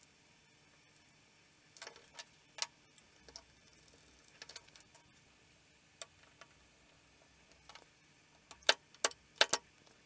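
Faint, scattered clicks and taps from wiring work: wire ends and a small screwdriver handled at a terminal block. A few sharper clicks come near the end.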